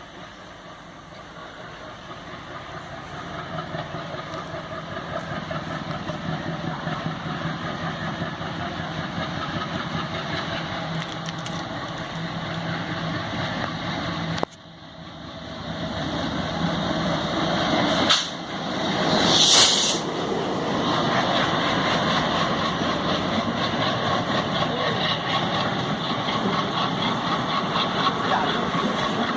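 WDM3D diesel-electric locomotive approaching, its engine running with a steady low hum that grows louder. About halfway in the sound drops abruptly and builds again. A short, loud high-pitched burst comes about two-thirds in, followed by the loud, steady rumble of the train passing close, with fast regular clicking.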